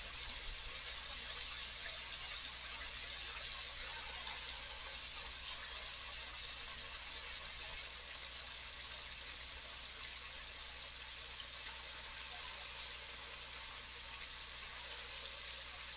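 Chicken pieces deep-frying in hot oil in a large stainless steel pot, a steady sizzle.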